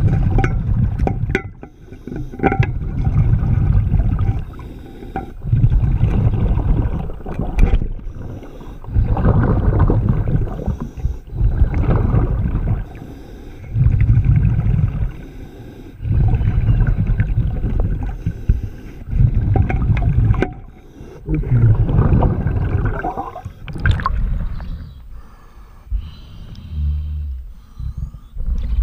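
Scuba diver breathing through a regulator underwater: exhaled bubbles rumble in loud stretches every few seconds, with quieter gaps between breaths and a few sharp clicks.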